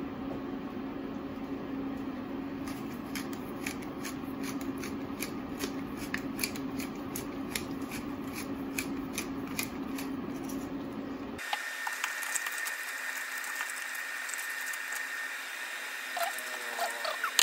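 Pan of seafood cooking on an induction cooktop: a steady low hum with irregular crackling ticks while seasoning is shaken over it. After an abrupt change about eleven seconds in, a steady hiss with a high whine.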